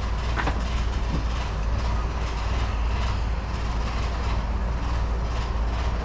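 A forklift engine running steadily with a constant low rumble, the machine holding the hoisted marine diesel on its chain.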